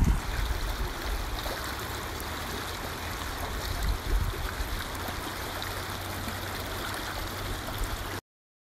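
Steady rush of running water, cutting off abruptly near the end.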